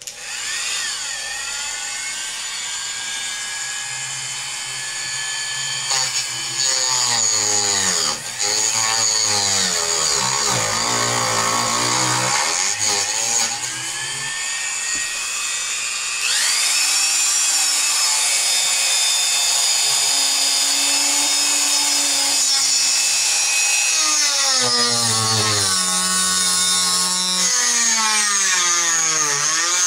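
Dremel rotary tool with a small saw blade cutting into the wood of a hollow-body guitar top. Its high motor whine starts suddenly, sags and recovers in pitch several times as the blade bites, and steps up higher and louder about halfway through.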